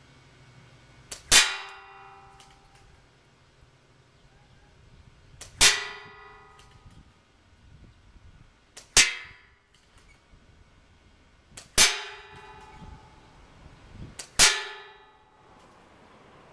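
Five airsoft BB hits on the target, each a sharp clang that rings briefly, spaced roughly three seconds apart, with a faint click just before each one.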